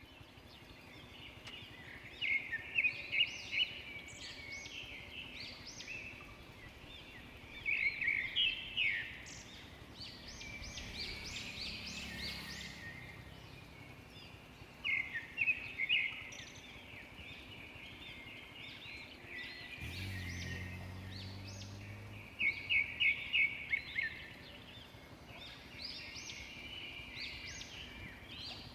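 Birds singing in about six bouts of quick, repeated high notes over a steady outdoor background. A faint low hum comes in briefly around the middle.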